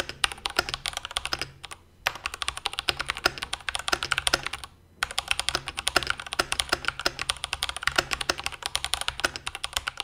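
Fast typing on a stock, unmodded IQUNIX OG80 Dark Side plastic-cased mechanical keyboard: a dense run of keystroke clacks, with two short pauses about two and five seconds in.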